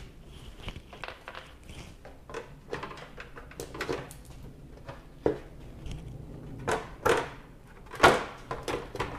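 Retaining plugs being pulled out of a carbon-fibre radiator shroud cover and the panel being handled: scattered small clicks and knocks, with several sharper knocks in the second half.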